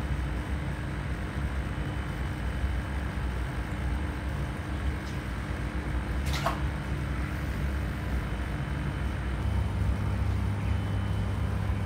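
Steady low hum with a faint hiss from the aquarium's overflow sump filtration running, with one brief sharp sound about six seconds in.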